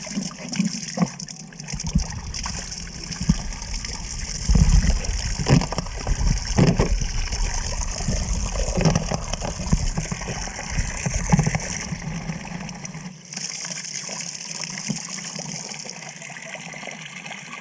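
Water running from a wall fountain's lever tap in a steady stream.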